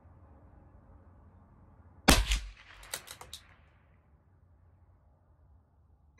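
CZ 457 bolt-action .22 LR rifle firing one shot of hot, high-velocity Aguila Interceptor ammunition about two seconds in, a really loud crack with a short echo. About a second later comes a quick run of four or so metallic clicks as the bolt is worked to chamber the next round, and the next shot goes off right at the end.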